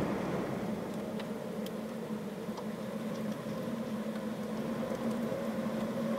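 Steady low engine hum holding two pitches, with a few faint ticks scattered through it.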